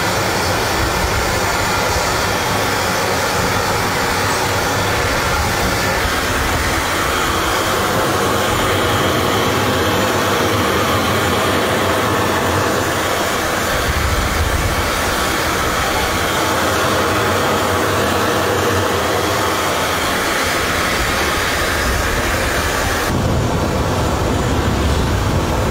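Steady, loud aircraft noise on an airfield: a continuous roar and hiss of running engines or power units. About 23 seconds in the higher hiss falls away and a lower rumble takes over.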